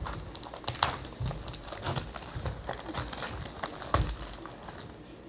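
Trading-card blaster box packaging being torn open by hand: irregular crinkling and tearing with small clicks and knocks.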